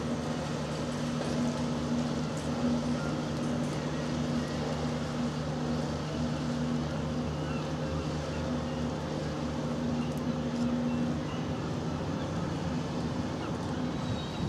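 Steady low engine drone with a constant hum and a second tone that pulses on and off.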